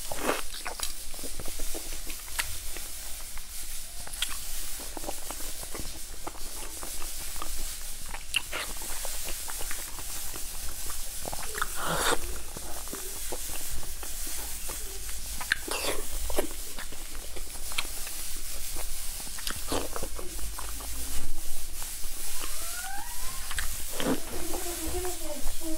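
Close-miked wet chewing, biting and lip smacking of soft, sticky braised pork in chili oil, heard as scattered smacks and clicks over a steady hiss.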